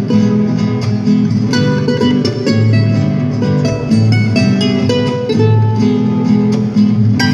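Live instrumental music: a charango plucking quick notes over two acoustic guitars playing chords and bass notes.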